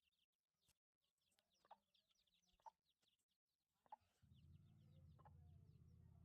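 Very faint chicks peeping in many short falling chirps, with a few brief clucks from a hen. A low hum comes in about four seconds in.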